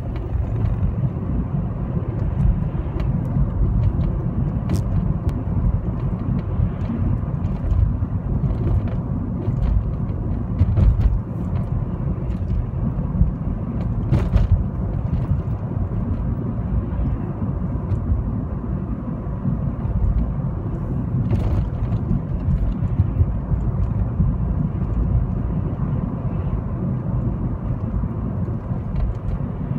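Steady low rumble of a car being driven, engine and tyre noise heard from inside the car, with a few faint short clicks now and then.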